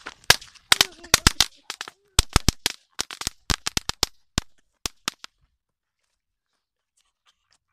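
Two strings of Chinese firecrackers, 40 in all, going off in rapid, irregular sharp bangs for about five seconds, then stopping.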